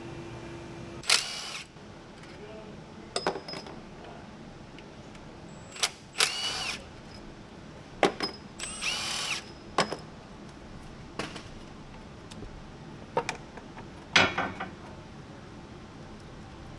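A power driver spinning in four short bursts, each winding up in pitch, with sharp clicks of tool and metal between them: the T40 Torx screws holding an automatic transmission's valve body being run out.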